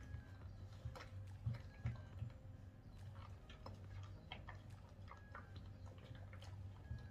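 Ironing: a steam iron sliding and being set down on fabric over an ironing board, giving soft irregular clicks and knocks over a low steady hum.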